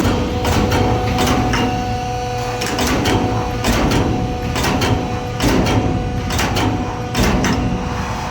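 CNC busbar punching and shearing machine at work: a run of sharp punching strokes, about two a second, over a steady machine hum.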